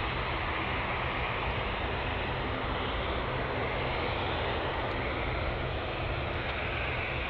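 Boeing 787-10 Dreamliner's turbofan engines running steadily at low taxi power as the jet turns onto the runway to line up, a continuous even engine noise with a low hum.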